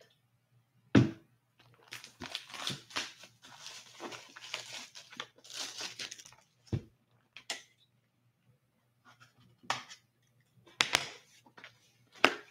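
Plastic shrink wrap being torn and crinkled off a sealed cardboard box of hockey cards, with a sharp knock of the box about a second in and another near seven seconds. More crinkling and knocks follow as the box is opened and the packs inside are handled.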